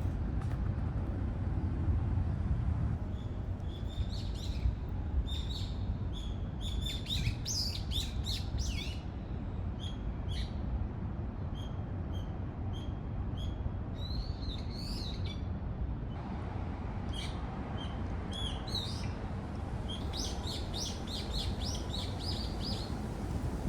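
Small birds chirping, many short high calls and a quick trill near the end, over a steady low rumble.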